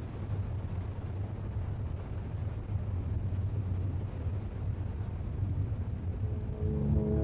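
A steady low rumble, like underwater ambience or a deep drone on a film soundtrack. About six and a half seconds in, sustained music notes come in over it.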